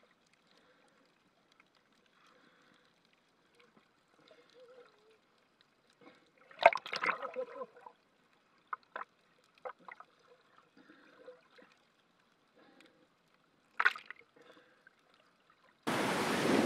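Muffled sound of water around a camera held underwater: faint crackles and clicks, with two louder muffled bursts, one about six and a half seconds in and one about fourteen seconds in. Near the end it cuts to steady surf and wind on the microphone.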